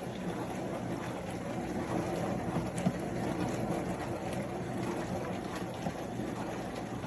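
Countertop mini dishwasher running its wash cycle: a steady pump hum under the rush of spraying water.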